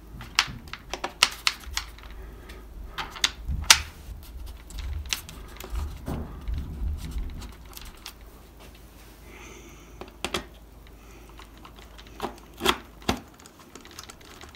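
Irregular light clicks and taps of hands fitting a foam RC airplane's wing onto the fuselage and handling its small wing bolts, over a low handling rumble.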